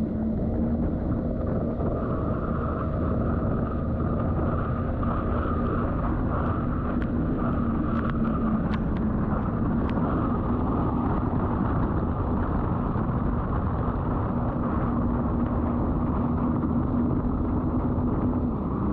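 Jet ski engine running steadily at speed, a constant drone with rushing water and wind noise.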